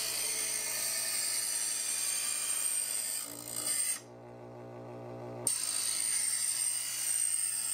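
Chef'sChoice Hybrid 250 electric knife sharpener, its motor humming while a cleaver blade is drawn through a motor-driven diamond-disc stage. There are two long grinding pulls, a few seconds each, with a short break of motor hum alone about three seconds in.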